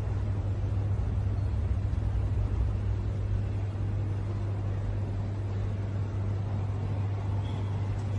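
Steady low hum with an even rumble of background noise in a large terminal hall, with no change from start to end.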